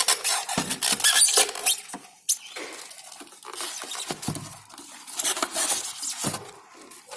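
Hand-work on a water heater's casing: a string of clicks, scrapes and light knocks from a screwdriver, screws and cover parts being handled as the unit is taken apart.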